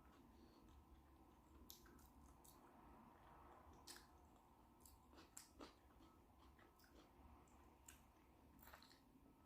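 Faint eating sounds: quiet chewing with a scattering of short, wet mouth clicks a second or so apart, from a person eating a shrimp boil.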